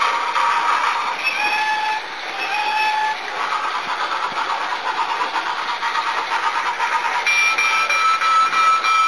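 Mr. Christmas toy roller coaster running: a steady mechanical clatter and rattle of the little cars and lift going round the plastic track. A few short musical notes sound about a second and a half in, and a long held note near the end.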